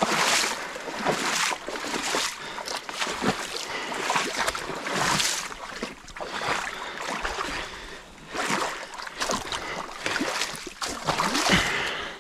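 Creek water splashing and sloshing in irregular swells every second or two as the mud and sticks of a beaver dam are raked and pulled apart.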